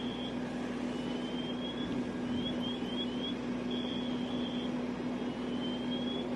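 A steady mechanical drone with a constant low hum, over which a high electronic alarm keeps cycling through a run of quick rising chirps, a held tone and a slow rising sweep, repeating about every three and a half seconds.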